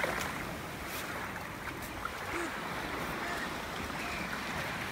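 Steady shoreline ambience: sea waves washing with an even hiss, with a few faint light ticks.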